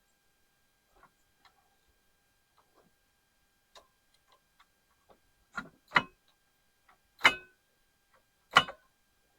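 Scattered light clicks and taps, then sharper, louder knocks in the second half: three loud ones roughly a second apart near the end, like hard parts being handled and knocked together.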